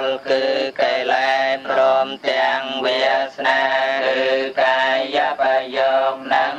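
Male voice chanting a Theravada Buddhist chant in a steady, rhythmic syllable-by-syllable recitation on a sustained pitch.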